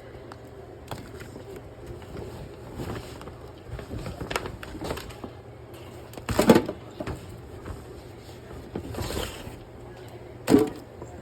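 Handling noises: light knocks and rustling, with two louder short thuds about six and a half seconds in and again near the end.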